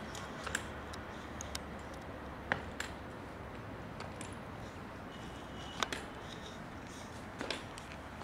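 Street cats eating dry kibble from plastic tubs: scattered sharp crunches and clicks of kibble and tubs, over a steady low outdoor hum.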